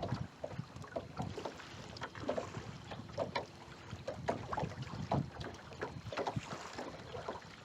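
Water lapping and slapping against the hull of a small fishing boat, in irregular short knocks.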